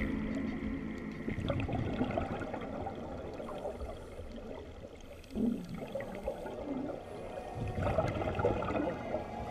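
Scuba divers' regulator exhaust bubbles heard underwater, coming in bursts about every three seconds as a diver breathes out.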